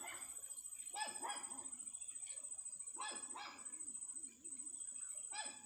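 A dog barking in short calls, about five barks falling in pairs.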